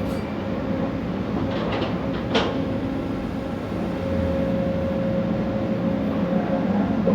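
Long-reach excavator's diesel engine and hydraulics running steadily under load, with a steady whine over the engine hum. A single sharp clank about two and a half seconds in.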